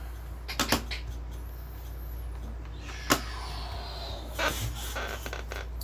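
Small handling noises on a tabletop: a couple of light taps, one sharp click about three seconds in, and soft rustling in the second half, over a steady low electrical hum.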